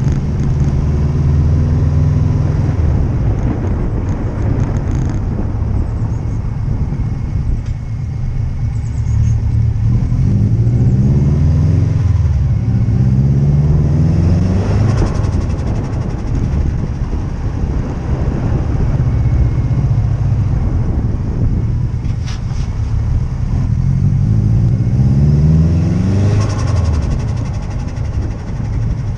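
Subaru Impreza WRX STi Type R's turbocharged flat-four engine running and being revved twice, the pitch climbing steeply each time. As the throttle shuts at the top of each rev there is a burst of turbo flutter, the compressor surging and stalling with the blow-off valve blanked.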